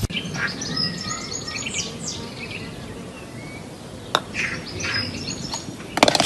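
Small birds chirping and tweeting in quick, high twitters, with a single sharp click about four seconds in and a loud burst of noise at the end.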